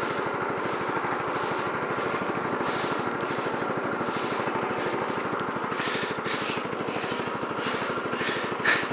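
Small single-cylinder petrol engine of a rental go-kart idling steadily, with no revving. A higher hiss swells about twice a second.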